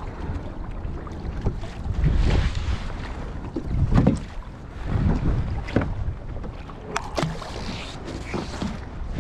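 Wind buffeting the microphone on a fishing kayak, with water lapping and a few sharp clicks: the loudest about four seconds in, and two close together near seven seconds.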